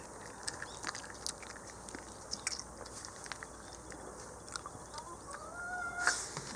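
Shiba Inu biting and chewing raw bear meat: irregular crunches and clicks. A short rising tone sounds near the end.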